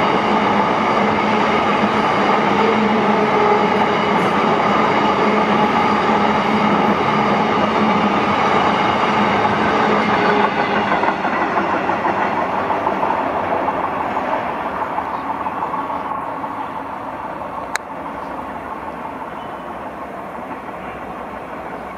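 Wagons of a long car-carrier freight train rolling past on the rails, the sound fading steadily from about halfway through as the last wagon moves away. A single sharp click near the end.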